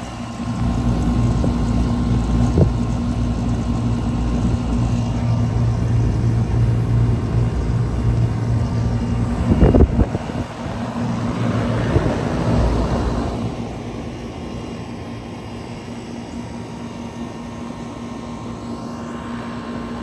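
2001 Comfortmaker 10 central air conditioner's outdoor condensing unit running: a steady low compressor hum under the rush of the condenser fan. A brief gust of wind on the microphone about halfway through, and the sound turns quieter a few seconds later.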